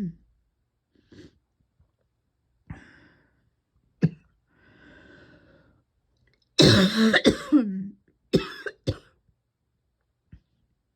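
A person coughing repeatedly from a persistent tickly throat and chest: a few short single coughs and a breath drawn in, then a loud bout of coughs past the middle, followed by two more short coughs.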